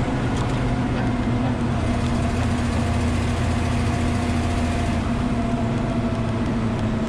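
M936A2 military truck's Cummins 6CTA8.3 diesel running as the truck drives, heard from inside the cab over road rumble. The engine's steady drone eases slightly lower in pitch.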